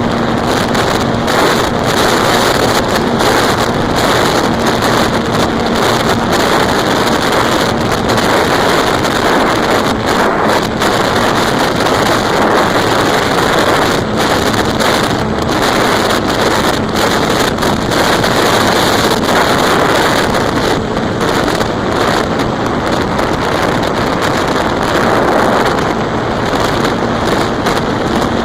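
Loud, steady wind rush buffeting the microphone of a camera riding on an E-flite Apprentice RC plane in flight, with a faint steady hum from its electric motor and propeller underneath.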